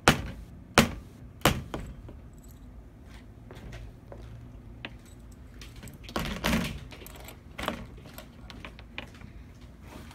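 Metal lock parts and the lock box being handled during a cam lock replacement: three sharp knocks within the first second and a half, a longer clatter about six seconds in, and one more knock shortly after.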